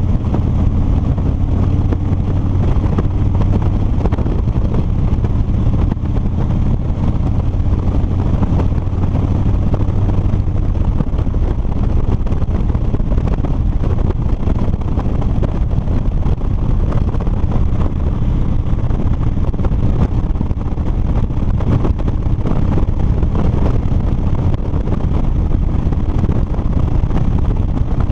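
2007 Harley-Davidson Street Bob's V-twin engine running at a steady cruising speed, with heavy wind rush over a helmet-mounted microphone. The engine note is clearest for the first ten seconds or so, then is largely buried in the wind noise.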